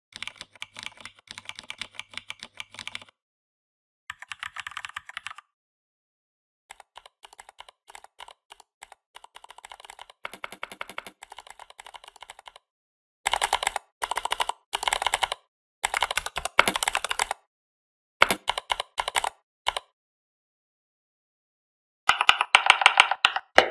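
Mechanical-keyboard key clicks played by the Mechvibes typing-sound app, in quick runs of typing separated by dead silence. The click sound differs from run to run: some runs are thin and quiet, and later ones are louder and deeper.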